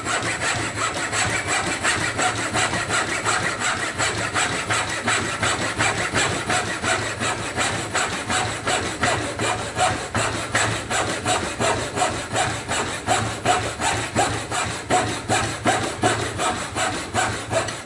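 Treadle-operated wooden frame scroll saw cutting a block of wood: the blade saws up and down in an even rhythm of a few strokes a second.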